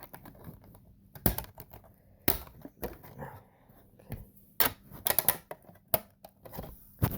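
Irregular clicks and knocks of hard objects being handled, with a quick run of several clicks about five seconds in.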